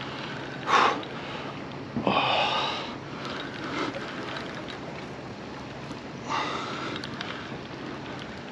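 A man breathing hard: a sharp sniff less than a second in, a long exhale at about two seconds and another near seven seconds, over steady wind noise on the microphone.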